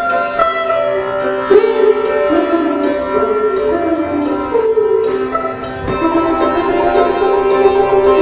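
Instrumental music for a dance performance: a melody moving over a steady drone.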